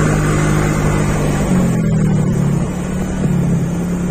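Motorcycle engine running steadily while riding. Its pitch steps up slightly about a second and a half in.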